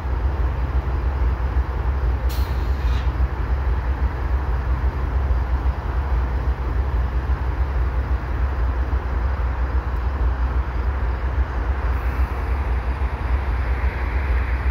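GE ES44 diesel-electric locomotive running with a steady low rumble. A short hiss about two seconds in, and another hiss that swells near the end.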